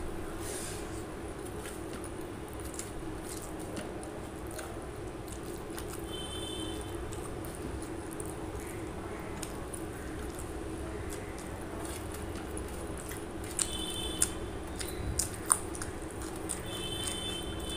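Eating by hand: fingers squishing and mixing rice with chicken curry gravy on a steel plate, and wet chewing of mouthfuls of rice, with many small clicks and a few sharper ticks near the end. A steady low hum lies under it, and faint short high chirps come a few times.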